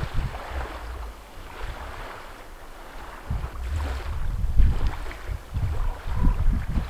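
Wind buffeting the microphone in irregular low gusts, strongest in the second half, over a soft wash of small waves lapping on the rocky shore.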